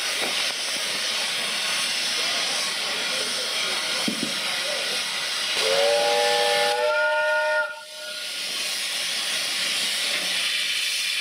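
Bagnall 0-4-0 saddle tank steam locomotive with a steady hiss of escaping steam. About halfway through, its steam whistle sounds one blast of about two seconds, stepping up in pitch partway through, then cuts off sharply.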